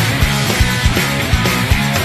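Loud rock-style music with a fast, steady drum beat over sustained bass notes.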